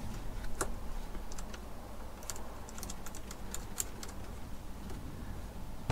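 Light, irregular metallic clicks and taps of a nut being tightened onto a battery terminal by hand, about a dozen, bunched mostly in the middle stretch.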